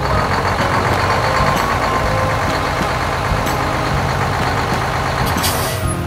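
Truck engine running steadily as the dump truck drives, with a short burst of hiss near the end.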